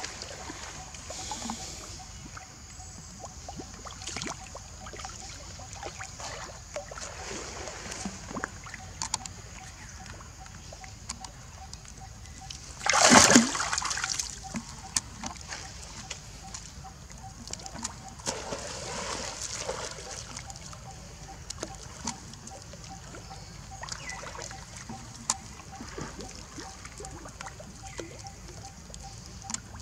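Macaques swimming and scrambling at a stone pool edge: light splashing, sloshing and dripping water, with one loud splash about halfway through.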